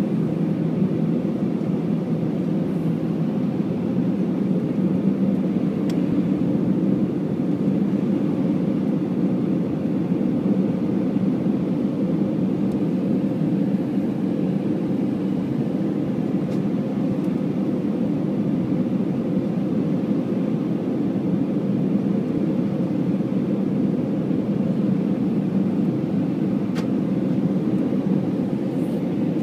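Steady low cabin roar of an Airbus A319's CFM56 turbofans and the rushing airflow, heard from inside the cabin over the wing during the descent to land.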